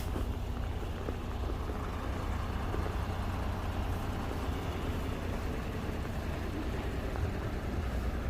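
Steady low rumble and hiss of city street traffic.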